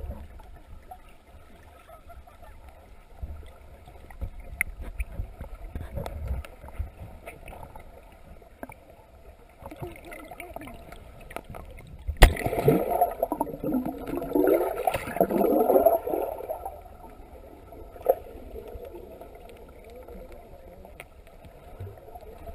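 Muffled water sound heard through an underwater camera: a low rumble of moving water with scattered small clicks. About twelve seconds in, a sharp knock starts a loud stretch of gurgling, splashing water and bubbles that lasts about four seconds.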